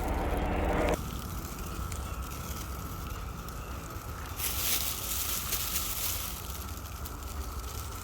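Chorus of periodical cicadas: a steady, high, even drone over a low rumble. A louder rush of noise cuts off suddenly about a second in, and a brief swell of higher hiss comes about halfway through.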